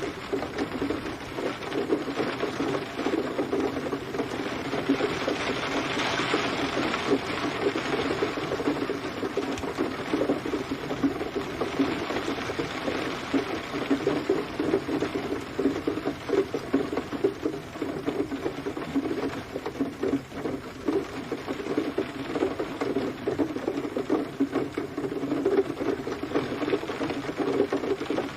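Steady rain, a dense patter of drops.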